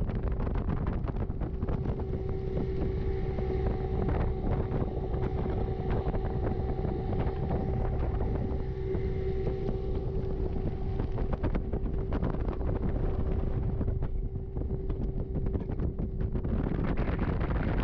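Bass boat under way at speed on a 200 hp Evinrude outboard: a steady engine drone over the rush of water past the hull, with wind buffeting the microphone.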